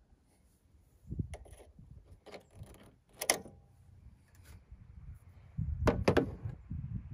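Hand tools clinking and knocking against metal parts in a truck's engine bay: a few sharp clicks, the loudest about three seconds in and a quick pair about six seconds in, over low rumbling handling noise.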